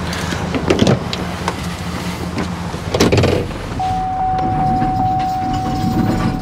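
Chevrolet Silverado 3500 pickup idling with a steady low engine hum, with two clunks, one about a second in and one about three seconds in. A steady high-pitched whine comes in about four seconds in.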